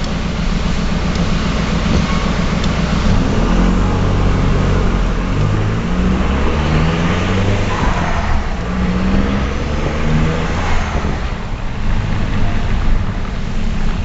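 Ford Mondeo TDDI's 2.0 turbodiesel engine running through a straight-through exhaust with no silencers, loud and deep, its pitch climbing in several short rises as it accelerates, with turbo noise over the top.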